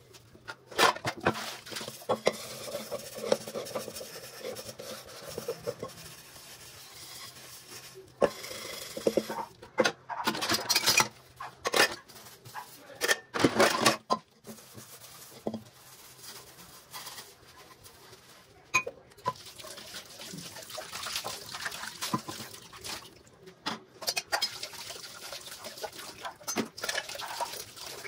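Washing up by hand: metal pots, pans and a mesh strainer clink and knock together in a sink in irregular sharp strikes, with sponge scrubbing and water between them.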